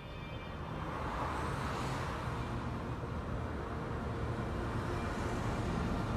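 Car driving along a motorway: a steady rumble of engine and tyres on the road, building up over the first second, with a rush of traffic noise swelling about one to two seconds in.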